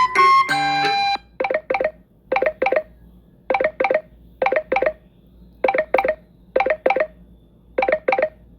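Samsung Galaxy S23 Ultra ringtones playing from the phone: a melodic, plucked-sounding ringtone ends about a second in. Then a different ringtone of short tones in quick pairs and threes repeats about once a second.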